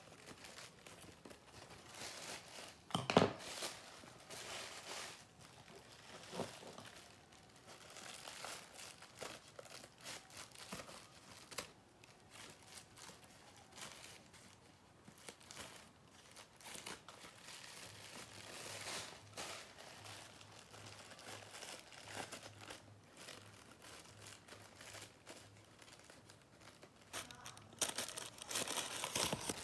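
Paper rustling and crinkling as it is handled and cut into small pieces with scissors, with a sharp knock about three seconds in and a louder stretch of rustling near the end.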